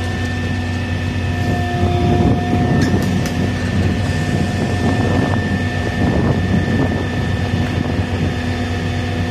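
Stoneblower track-maintenance machine running while standing: a steady diesel-engine drone with a constant high whine over it, swelling slightly about two seconds in.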